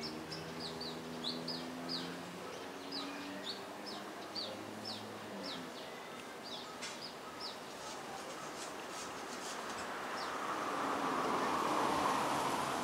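A small bird gives a quick run of short, high, down-slurred chirps, a few a second, for the first several seconds, over a lower drawn-out call in the background. Near the end a broad rushing noise swells up and becomes the loudest sound.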